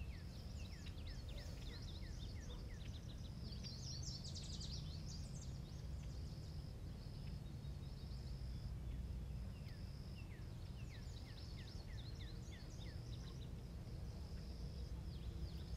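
Faint outdoor ambience: a steady high insect trill that stops and starts, and birds chirping in runs of short falling chirps, with a brief burst of busier birdsong about four seconds in, over a low rumble.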